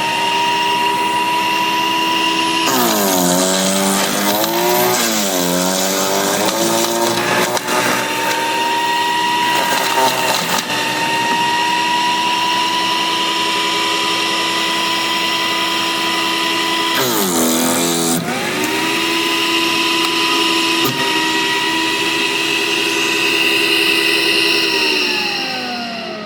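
Sun Joe CJ602E 15-amp electric chipper-shredder running with a steady high motor whine, its pitch dipping and wobbling twice as branches are fed in and load it down. Near the end the motor slows and winds down in pitch; the owner thinks too many limbs went in and jammed it.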